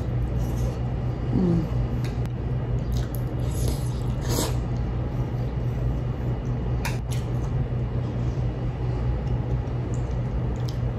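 Close-miked chewing of a bite of air-fried chicken wing, with a few soft mouth and utensil clicks, over a steady low hum.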